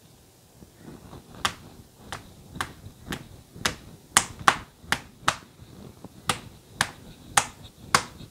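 Thin layered paratha dough being stretched and slapped against a countertop: a steady run of sharp slaps, about two a second, starting about a second and a half in.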